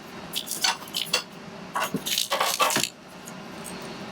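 Sharp metallic clicks and clinks from hands handling the server's metal cards and chassis parts, several in quick succession over the first three seconds, then only a faint steady hum.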